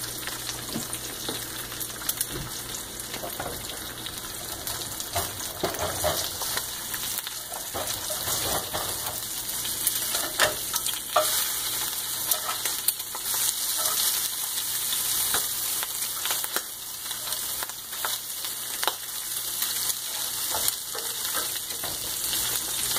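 Eggs frying in oil in a cast-iron skillet: a steady sizzle with scattered sharp pops and clicks.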